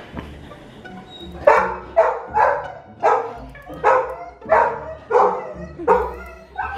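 Golden retriever puppy barking in a string of short barks, about two a second, starting about a second and a half in.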